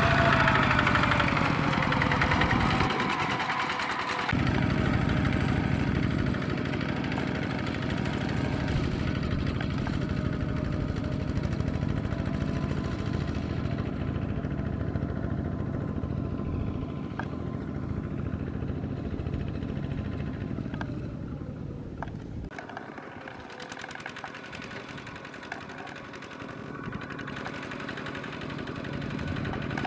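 Kubota RT140 walking tractor's single-cylinder diesel engine chugging steadily under load as its cage wheels pull through paddy mud. It grows fainter in the middle and louder again near the end.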